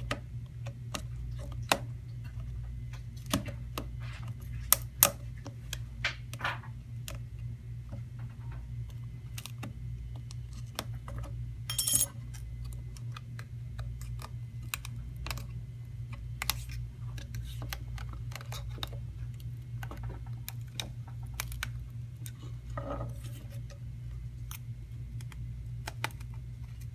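Scattered small clicks and taps as the cracked screen of an iPod Touch 6th generation is worked loose from its frame by hand and with a stainless steel pick, over a steady low hum. One sharper click comes about twelve seconds in.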